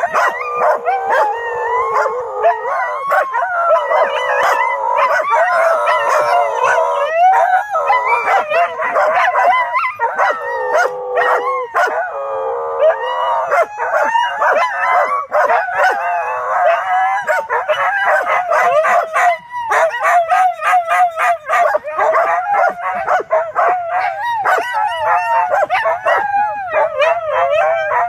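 Two dogs howling together in long, wavering, overlapping howls, with another dog barking and yipping in short sharp bursts all through.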